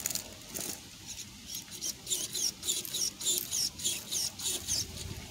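Redcat Gen7 RC rock crawler's small electric motor and drivetrain working faintly as it climbs over a boulder. Over most of it runs a rapid series of high squeaks, about four or five a second.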